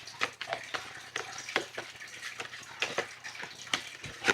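A deck of reading cards being shuffled and handled: a run of soft, irregular clicks and rustles.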